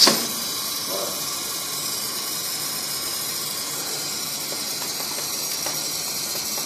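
Oxy-fuel brazing torch flame hissing steadily while it heats a copper refrigerant line at a refrigerator compressor for brazing. A single sharp, short sound right at the start is the loudest moment.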